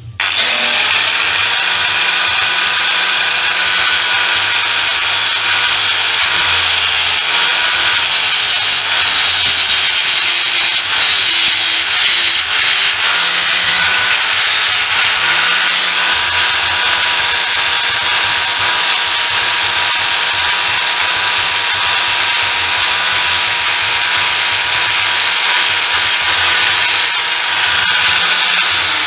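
Electric power tool motor spinning up to a high, steady whine, its pitch dipping briefly several times as it bites into the work, then starting to wind down at the very end.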